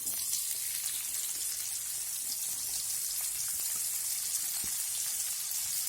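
Chopped onions sizzling steadily in hot oil in a pan.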